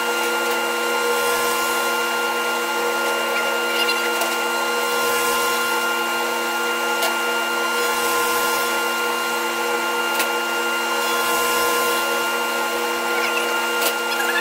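Thickness planer running steadily with a constant motor whine and a hiss that swells every few seconds as its cutterhead planes a rough-cut cedar board, with a few faint sharp ticks.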